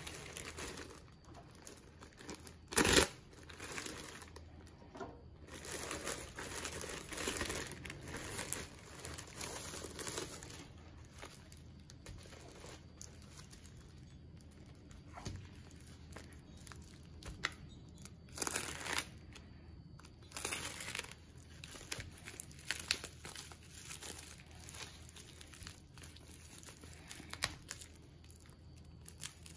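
A plastic courier mailer and bubble wrap being handled and opened: irregular crinkling and rustling, with a short, loud sharp noise about three seconds in.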